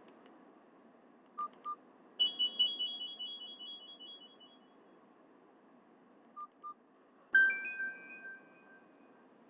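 Nokia 216 phone speaker playing short Nokia 6500 Slide tones: two quick key beeps, then a high, rapidly pulsing electronic tone that fades over about two seconds. Two more key beeps follow, then a second electronic tone starts sharply and fades away.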